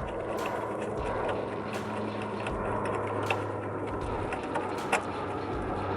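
Hand tools working the nut off a newly pulled-through wheel stud: sharp metallic clicks about every second and a half, over a steady low hum.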